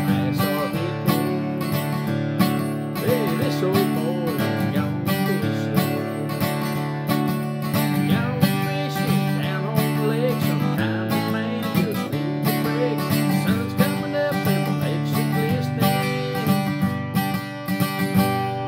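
Acoustic guitar strummed in a steady rhythm, accompanying a man singing a country song.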